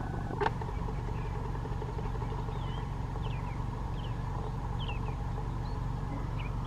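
Steady low rumble of distant traffic, with five or six faint, short, high chirps from small birds scattered through it and a single light tap about half a second in.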